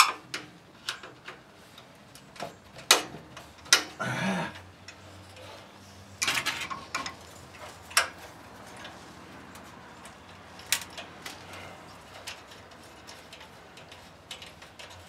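Scattered light clicks and small metallic rattles of hands working a throttle cable loose from a mini bike engine's carburetor linkage, with brief rustling scrapes about four and six seconds in.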